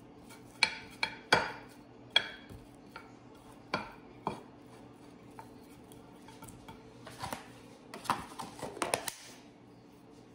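Pastry brush spreading butter over a glass baking dish: several sharp clicks of the brush knocking against the glass in the first few seconds, then a quick run of brushing and scraping strokes about seven seconds in.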